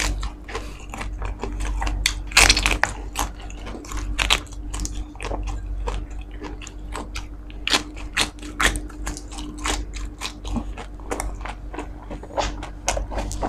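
Close-miked biting and chewing of crispy lechon skin: a run of sharp, irregular crunches, several a second, as the crackling breaks between the teeth. A faint steady hum sits underneath.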